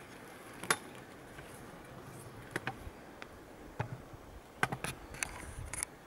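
A handful of short, sharp clicks and snaps at uneven intervals, the loudest just under a second in and a quick cluster near the end, over a faint steady hiss.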